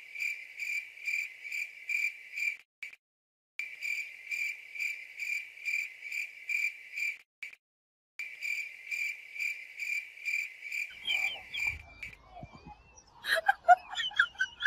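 High-pitched chirping: one steady tone pulsing about three times a second, in three runs with short breaks between them. Near the end it gives way to varied squeaky chirps and a brief rising whistle.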